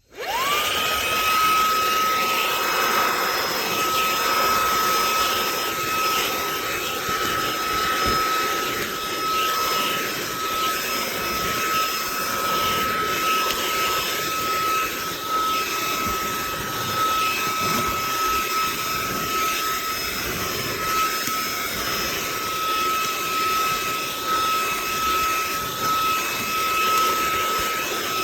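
HOTO cordless handheld vacuum and blower switched on, its motor spinning up within half a second to a steady high whine over rushing air, running evenly throughout.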